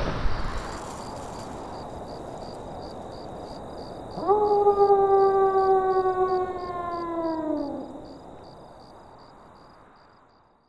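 A wolf howling once: one long call that starts about four seconds in with a brief rise, holds a steady pitch for about three seconds and falls away at the end, over a faint steady background hiss that then fades out.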